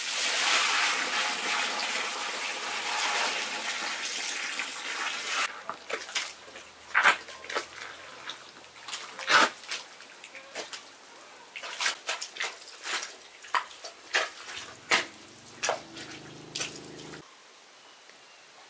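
Water running for about five seconds, then a scattered run of short, sharp knocks and taps.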